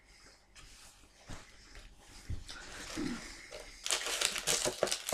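Candy wrapper crinkling and rustling as it is handled and opened, with a few soft knocks first and the densest, loudest crackling over the last second or so.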